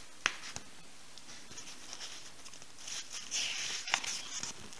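Magazine pages handled and turned by hand: a couple of light clicks from the page edge, then a papery swish as a page is turned about three seconds in.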